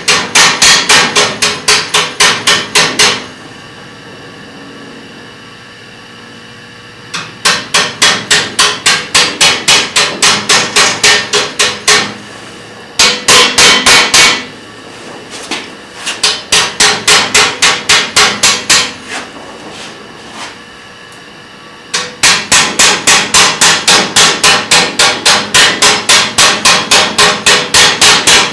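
Hammer striking metal in quick, even blows, about five a second, with a ringing tone, in several runs broken by short pauses.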